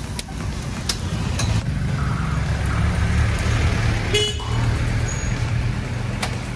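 Street traffic: motor vehicle engines running close by with a steady low rumble, and a short horn toot about four seconds in. A few faint clicks sound here and there.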